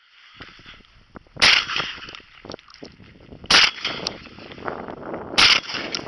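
Shotgun fired three times, about two seconds apart, with rustling noise between the shots.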